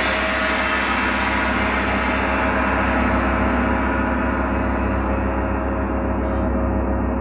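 Large hanging gong ringing on after a strike: a dense wash of many overlapping tones, its high overtones slowly fading while the low hum holds steady.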